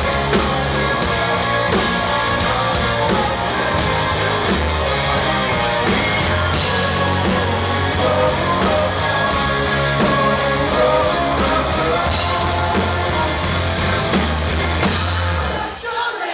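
Live rock band playing loudly: electric guitar, bass and a steady drum beat, with a singer. About a second before the end the band stops together and the crowd starts cheering and yelling.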